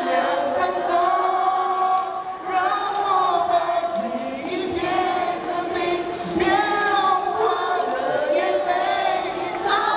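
A young man singing a Mandarin pop song into a handheld microphone, amplified over a PA, with other voices joining in.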